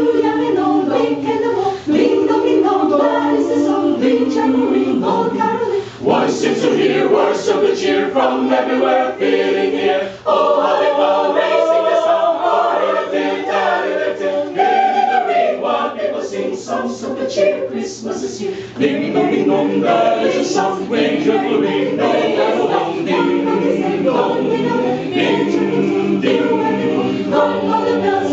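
Mixed choir of men and women singing a cappella under a conductor, several voices together in sustained phrases, with short breaks between phrases.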